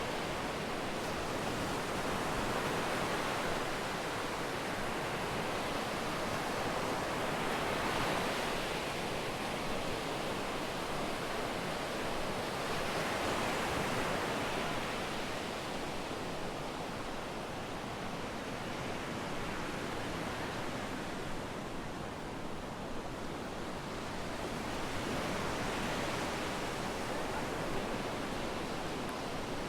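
Sea waves breaking and washing up a beach: a continuous surf noise that swells and eases every several seconds.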